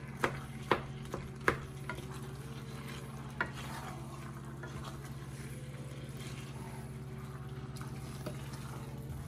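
Wooden spoon stirring rice into a ground-meat sauce in a large metal pot, with several sharp knocks of the spoon against the pot in the first two seconds and one more a little after three seconds. A steady low hum runs underneath.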